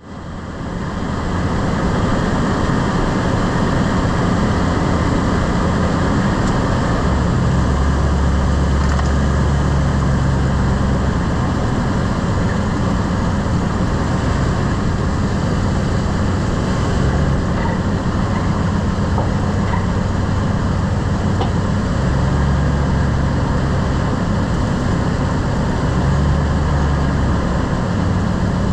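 Lifted pickup truck driving: steady road and running noise with a low engine drone that swells and shifts a few times. There are a couple of faint clicks. The clunk the owner hears when braking is not clearly picked out.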